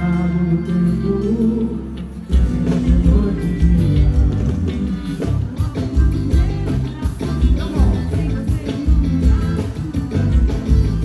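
Live band music with a woman singing into a microphone. Held chords open it, then about two seconds in a driving beat with heavy bass comes in and the level jumps.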